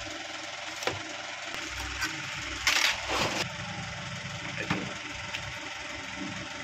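A few light knocks and a short, louder scrape-and-clatter of tools and small electronic parts on a workbench, over a steady hum.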